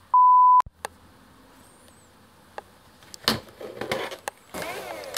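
A loud electronic beep, one steady pure tone of about half a second, at the end-screen transition. Then quiet room tone with a few sharp clicks and knocks from the plastic Nerf Modulus blaster being handled, and a steady noise that starts near the end.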